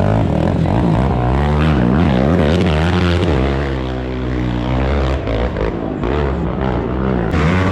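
Several racing ATV engines revving hard at once, their pitches rising and falling as they accelerate and pass.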